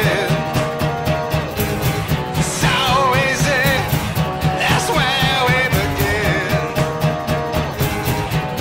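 Rock song with guitar and a singing voice over a steady beat.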